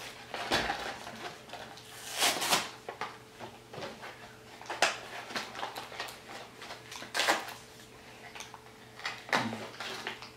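Crinkling and rustling of a toy's plastic blister pack and cardboard backing being handled and pulled at by hand, in irregular short spells, as a child tries and fails to open the package.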